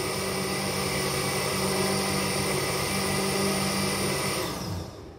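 Electric blender running steadily as it blends a salad sauce, then switched off a little before the end, its motor noise dropping away.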